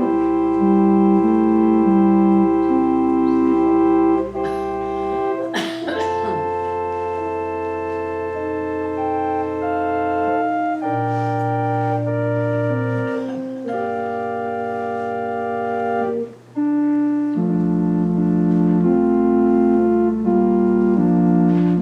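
Organ playing a slow prelude of sustained, held chords over long bass notes, with the chords changing every second or two and a short break about sixteen seconds in.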